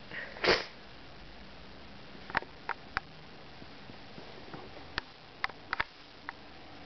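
A single short huff of breath from a person about half a second in, then a scattered run of small, sharp clicks and taps.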